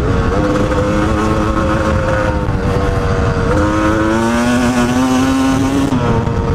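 Yamaha YZ250 two-stroke single-cylinder dirt bike engine running hard at speed, heard from on the bike. Its pitch holds steady, dips briefly about three and a half seconds in, then climbs slowly, over a constant rumble of wind and tyres on dirt.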